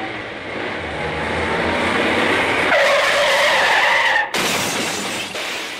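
Rushing wind and road noise on a bicycle-mounted camera builds up. About three seconds in, a squealing skid of bicycle tyres and brakes cuts in for about a second and a half, then stops abruptly, and the rushing carries on.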